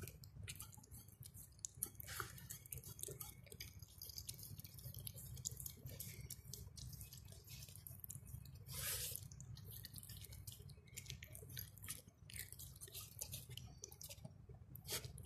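Dog eating chicken and egg noodles from a stainless steel bowl: faint, irregular wet licking and chewing clicks, with a slightly louder rustle about nine seconds in.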